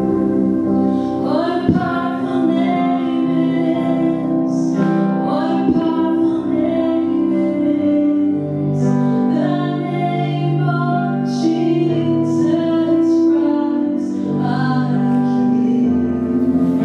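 A woman singing a slow worship song solo into a handheld microphone, holding long notes over a steady instrumental accompaniment.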